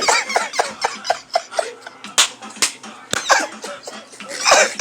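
Short, choppy vocal bursts from people, cough-like sounds mixed with laughter and bits of speech, with two sharp clicks about two seconds in.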